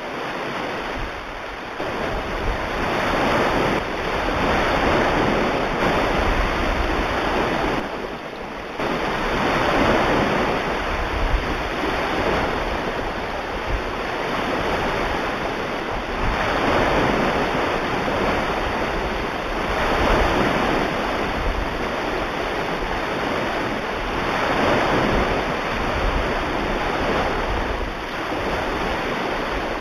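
Ocean waves washing onto a shore, a steady surf noise that swells and ebbs every few seconds.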